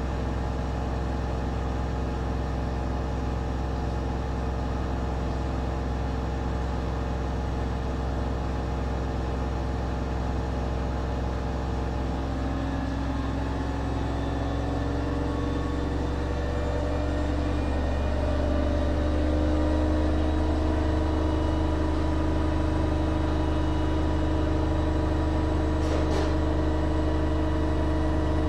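Schulthess washing machine in its spin cycle: a steady motor and drum hum whose tones rise in pitch and get a little louder about halfway through as the spin speeds up, then hold steady. A faint click comes near the end.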